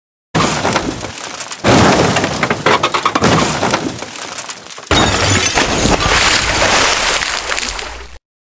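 Toy dump truck and its load of small limestone chunks tumbling down a concrete slope into water: a dense crashing clatter full of sharp clicks and cracks. It comes in three stretches, each starting abruptly, the last ending with a sudden cut.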